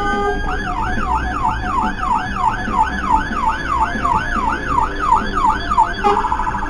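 Fire engine siren sounding a fast yelp, rising and falling about three times a second. A little before the end it switches to a rapid warble as the fire engine comes alongside.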